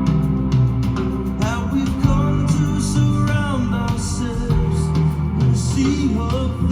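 Rock ballad with guitar, bass and a male singing voice, played back through Klipsch RP-280F floorstanding speakers.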